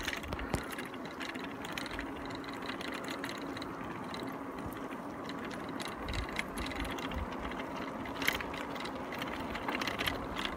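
Road bicycle rolling on rough asphalt: steady tyre and wind noise with the fast ticking of a coasting freewheel hub, and a few sharp clicks from the bike, one plain one about eight seconds in.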